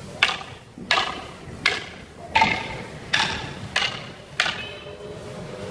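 Escrima training sticks clacking together in a partner drill: seven sharp strikes at an even pace, about two-thirds of a second apart, each with a brief ringing tail.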